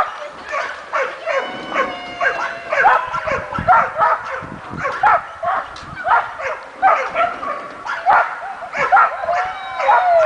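Dog barking and yelping over and over, about once or twice a second, with a few drawn-out high whines between the barks.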